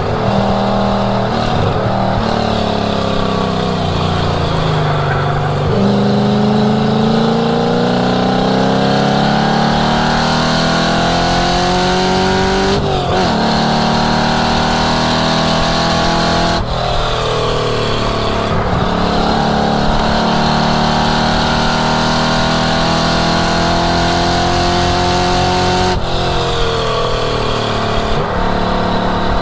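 1967 Mustang's V8 under hard acceleration on track. The engine note climbs steadily in pitch, then drops sharply at each shift or lift, several times over.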